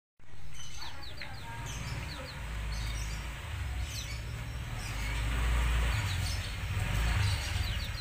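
Black-naped oriole (kepodang) calling: clusters of short, quick, high falling chirps about once a second, over a steady low rumble.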